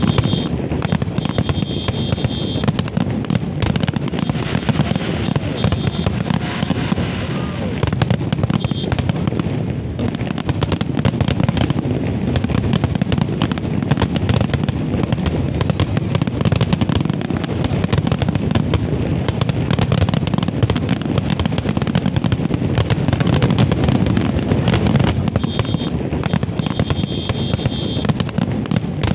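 A fireworks display at full pace: a dense, continuous barrage of shell bursts, bangs and crackling, many going off every second.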